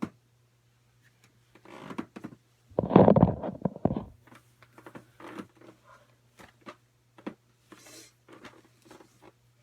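Handling noises close to the microphone: scattered small clicks and rustles, with one loud rumbling rustle lasting about a second, starting near three seconds in, over a steady low hum.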